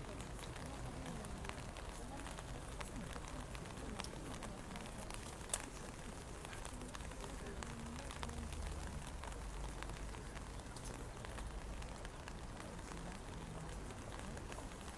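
Steady rain falling on umbrellas and wet pavement, with one sharp click about five and a half seconds in.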